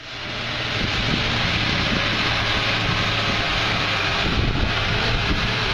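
A vehicle's engine running steadily, a low hum under a dense hiss of wind or road noise, fading in over the first second.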